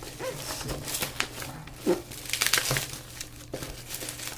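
Shipping packaging crinkling and rustling as it is handled, in irregular bursts of sharp crackles.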